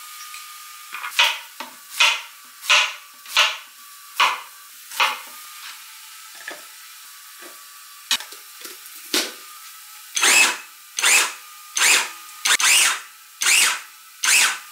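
Half a zucchini being minced in a vegetable chopper: a run of short, separate chopping strokes, about one a second at first, then louder and quicker over the last few seconds.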